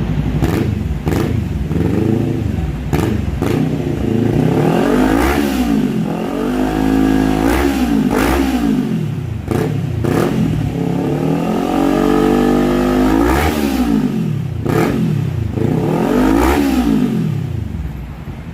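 Kawasaki Z400 parallel-twin engine revved through a Villain GP1 exhaust: about six blips of the throttle, each rising and falling in pitch, one held a little longer near the middle. Sharp cracks come between the revs.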